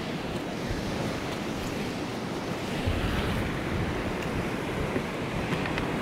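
Sea surf breaking and washing over rocks, with strong wind buffeting the microphone; the low rumble of wind and water gets heavier about three seconds in.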